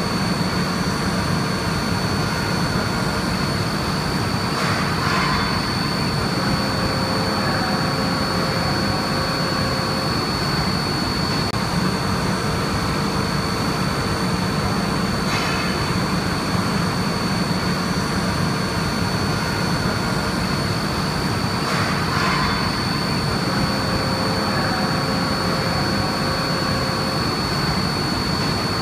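CNC milling machine cutting a bronze wear plate under flood coolant: a steady machine noise with a constant high whine running through it.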